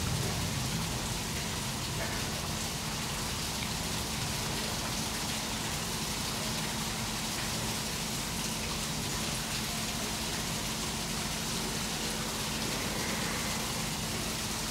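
A steady, even hiss of falling water or rain, with a faint low hum underneath.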